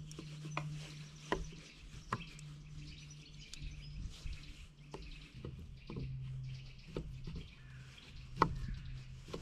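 Small knife slicing sausages on a wooden cutting board: irregular sharp knocks of the blade meeting the board, about one every second or so, the loudest near the end.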